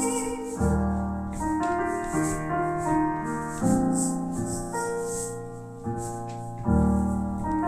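Acoustic piano playing a slow closing instrumental passage of sustained chords, a new chord or note struck about every second.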